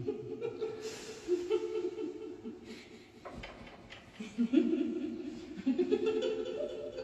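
A person laughing and chuckling in short stretches, with a lull partway through.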